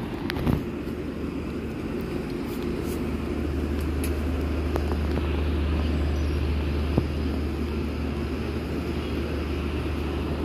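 Diesel engine of a stationary passenger train idling with a steady low hum that grows a little louder about three seconds in.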